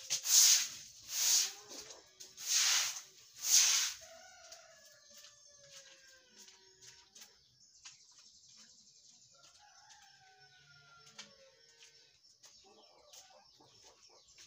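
Four loud strokes of a long grass broom sweeping wet ground in the first four seconds. Then a rooster crows twice, fainter, with faint scattered clicks between.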